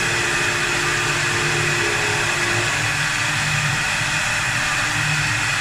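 4-axis CNC wood lathe running as it turns a sofa leg: a steady, loud whirring and hissing of the spinning workpiece and cutter, with a faint steady tone that stops about halfway through.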